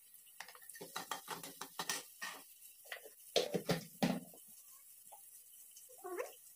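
Kitchen handling clatter: a spoon and plastic spice containers tapped, shuffled and set down, a quick series of light knocks and clicks that is loudest about three to four seconds in. Near the end comes a short squeak as a plastic spice jar's lid is twisted open.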